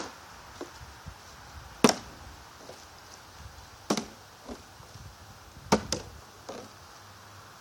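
Plastic water bottle being flipped and landing on a concrete path: four sharp knocks about two seconds apart, each followed by a fainter knock as it bounces or tips over.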